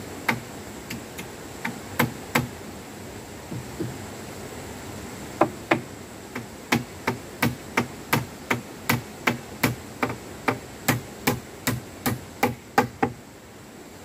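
Hammer blows on wood: a few scattered strikes, then from about five seconds in a steady run of about three blows a second.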